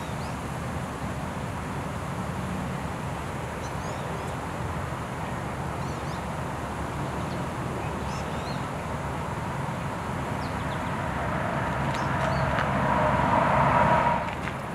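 Outdoor ambience: a steady low rumble of distant traffic, with faint high chirps of small birds now and then. A louder rushing noise swells over the last few seconds and cuts off suddenly.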